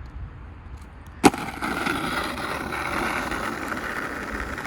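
A skateboard hits the ground with a sharp clack about a second in, then its wheels roll steadily.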